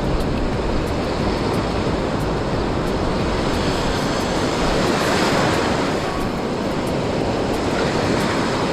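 Ocean surf breaking and washing up the beach, a steady rushing noise, with wind rumbling on the microphone.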